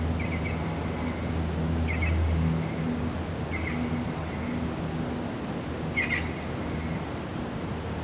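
Birds chirping in short, high calls, about five of them, the loudest about six seconds in, over a steady background hiss. A low hum runs underneath and stops about two and a half seconds in.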